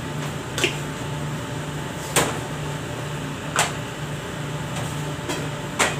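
A steady low machine hum with about four short, sharp clicks or taps spread through it, the sound of ingredient containers and a spoon being handled beside a metal mixing bowl.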